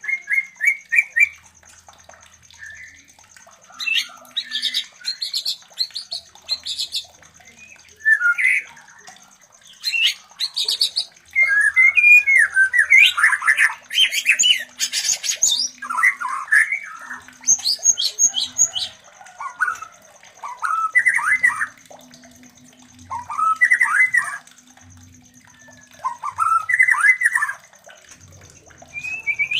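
White-rumped shamas giving mating calls: short bouts of fast squawking and whistled notes, one every few seconds. A faint steady high whine runs underneath.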